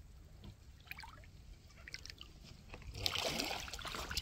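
Shallow seawater over a tidal flat, first still with a few faint drips and ticks, then sloshing as a person starts wading through it about three seconds in.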